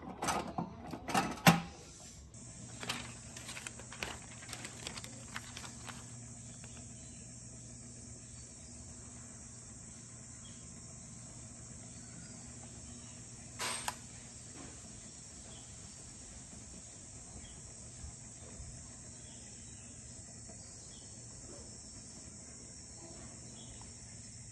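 A few clicks and knocks, then about two seconds in the FGK320-I roller laminator starts and runs steadily with a low hum and a high-pitched whine as its rollers turn. One sharp click about halfway through.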